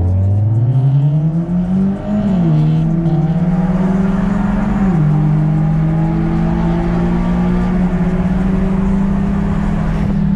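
Car engine heard from inside the cabin, accelerating with a rising note. The note drops as the car shifts up about two seconds in and again about five seconds in, holds steady at cruise, then falls near the end as the car slows.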